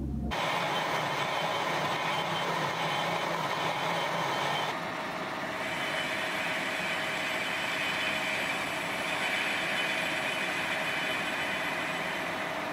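Metal lathe turning a cast steam-pump cylinder liner, the tool cutting into its end under a slow, fairly heavy cut through the casting's sand and scale. A steady cutting noise that eases briefly about five seconds in.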